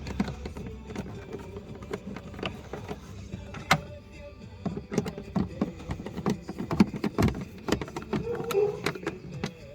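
Irregular clicks and knocks of car parts being handled and fitted, thickest in the second half, over faint music.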